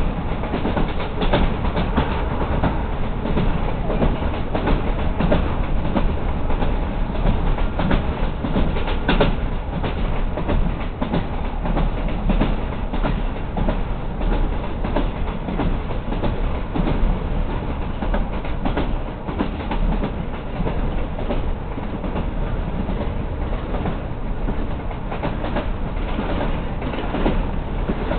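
Passenger train running along the track: a steady rumble with many irregular clicks and knocks from the wheels on the rails.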